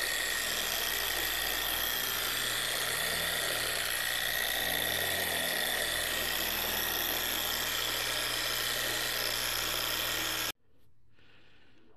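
Porter-Cable random orbital polisher running steadily, its foam pad spreading a thin coat of wax on car paint. It cuts off suddenly near the end.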